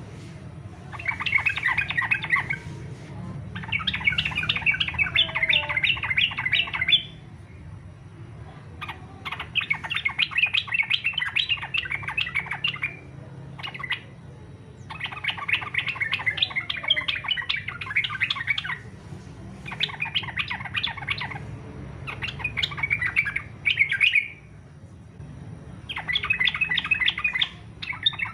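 Yellow-vented bulbul (trucukan) singing its combative 'fighter' song: repeated bursts of rapid, scratchy chattering notes, each lasting one to three seconds with short pauses between.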